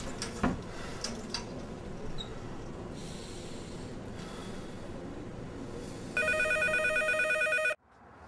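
A steady background hum with a few faint clicks, then about six seconds in a telephone rings with a loud, fast warbling trill for about a second and a half before cutting off abruptly.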